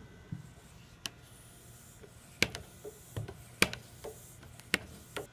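Hand bicycle pump being stroked to pressurize an air cannon's chamber: sharp clicks about once a second, one with each pump stroke.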